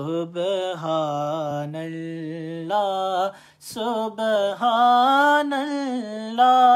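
A man's solo unaccompanied voice reciting a Punjabi naat in long, ornamented held notes, with a brief break for breath about three and a half seconds in.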